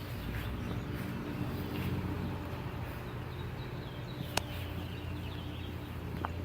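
Outdoor ambience: faint bird chirps over a steady low hum, with a single sharp click about four seconds in and a fainter one near the end.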